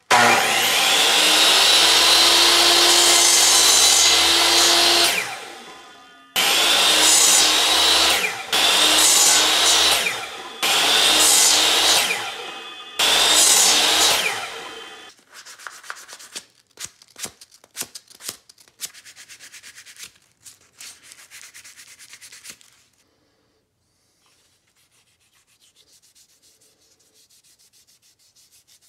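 Electric miter saw cutting a wooden dowel into short plugs. It runs once for about five seconds and winds down, then makes four shorter cuts in quick succession, each start ending in a falling spin-down. Quieter irregular clicking and clatter follow, and near the end there is faint rhythmic rubbing of wooden dowel plugs being sanded by hand on sandpaper.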